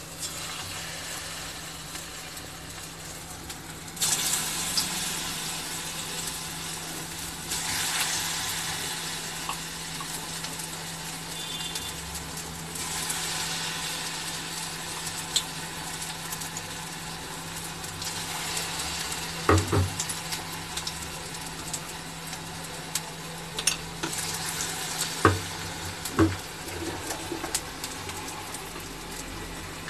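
Hot oil sizzling steadily as batter-coated cauliflower florets (bajji) deep-fry in a steel kadai. The sizzle gets louder about four seconds in and again near eight seconds, and a few sharp knocks come in the second half.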